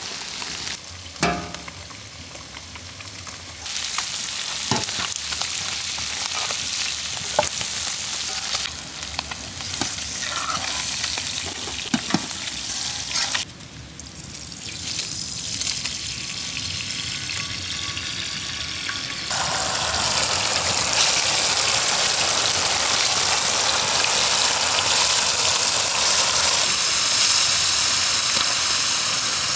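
Marinated snakehead murrel fish pieces sizzling in hot oil on a large flat griddle pan over a fire, with a few sharp clicks of utensils. The sizzle turns louder and fuller about two-thirds of the way in.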